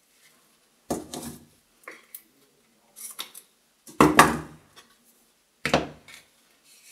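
Handling noises from a roll of double-sided tape being unwound and worked against a cardboard tube on a tabletop. There are about five short rustles and knocks, the loudest about four seconds in.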